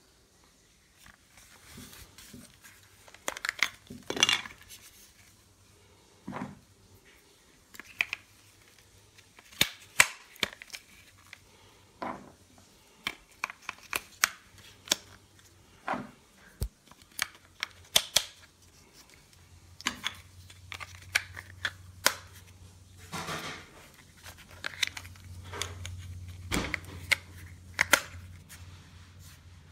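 Irregular sharp plastic clicks, snaps and rustles of a handheld plastic air-lighter's battery compartment being opened and batteries being fitted by hand. A low steady hum comes in about two-thirds of the way through.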